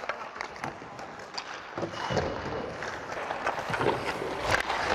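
Hockey skate blades scraping and gliding on ice, with scattered stick and puck clicks, heard close through a player's body mic. A sharper knock comes near the end.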